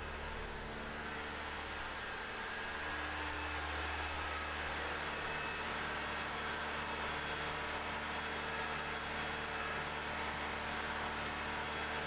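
2009 Honda Civic's four-cylinder engine idling steadily just after a cold start, heard from the open engine bay.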